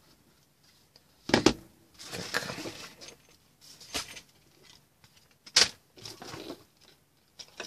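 Handling sounds of a GVDA GD118B handheld digital multimeter being set down on a wooden workbench and its test leads being moved across the bench. Three sharp knocks, the loudest about a second and a half in, with scraping and rustling between them.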